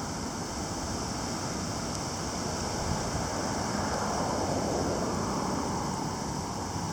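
Heavy rain falling in gusty wind: a steady rushing hiss that swells a little about four seconds in as a gust picks up.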